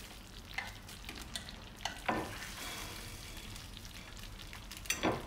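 Metal serving spoon scraping and knocking against a slow-cooker pot while scooping potatoes and gravy, over a faint steady sizzle of the hot gravy fresh from the oven. The loudest knocks come about two seconds in and near the end.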